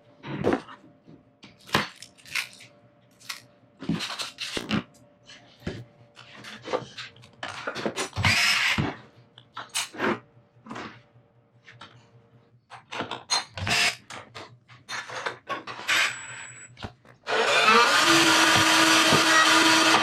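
Irregular knocks and clatter of workshop handling, then about 17 seconds in a power tool starts and runs steadily and loudly.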